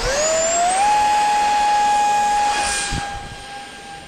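50 mm electric ducted fan spooling up to full throttle with a quickly rising whine, then holding a steady high whine with hiss. About three seconds in there is a brief thump, and the whine fades as the jet pulls away.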